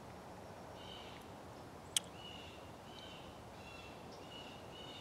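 A bird chirping: a string of about six short, high notes over faint outdoor background noise, with one sharp click about two seconds in.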